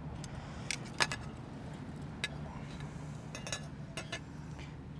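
Metal tongs clicking and clinking against a kettle grill's steel cooking grate, a handful of sharp taps with the clearest about a second in, over a steady low hum.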